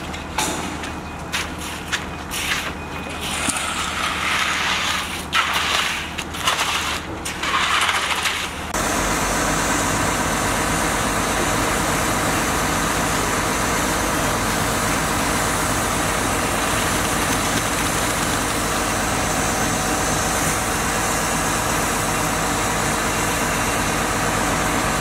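Short stretches of scraping as rakes spread wet concrete, then, about nine seconds in, the sound changes abruptly to the steady running of a concrete pump's engine.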